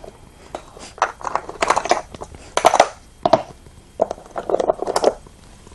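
Go stones clacking and rattling in irregular clusters of short clicks, as they are picked up and set down on a board while a sequence of moves is laid out.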